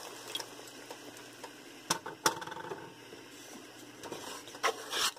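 Cornflour slurry poured from a bowl into a hot pan of onion and capsicum: a faint hiss, with a few sharp clinks of crockery and utensils against the pan, two about two seconds in and two more near the end.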